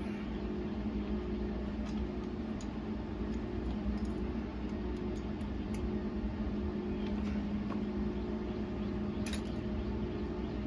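Steady machine hum with scattered light clicks and ticks.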